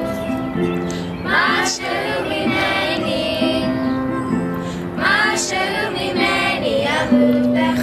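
Young voices singing a slow song over sustained keyboard chords.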